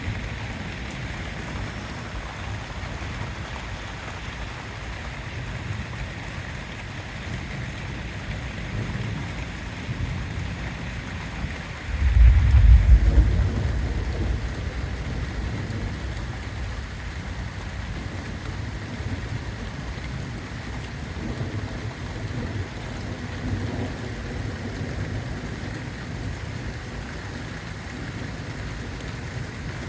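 Steady rain falling during a thunderstorm. About twelve seconds in a loud, deep thunderclap breaks in and rumbles away over the next few seconds.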